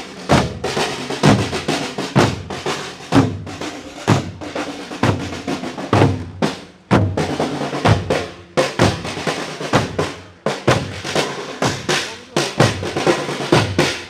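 Marching drums beating a rhythm, with snare-drum rolls over bass-drum strokes and a couple of short breaks.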